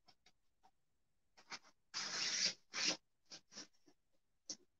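The shower-curtain-like fabric of a folding portable bathtub rustling and rubbing as it is handled and a plastic frame pole is fitted into it: a run of short scrapes, the longest and loudest about two seconds in.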